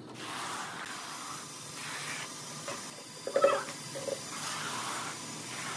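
Notched steel trowel scraping through wet cement tile adhesive on a concrete floor, combing it into ridges in repeated sweeping strokes. A short pitched squeak is the loudest sound, about three and a half seconds in, with a fainter one just after four seconds.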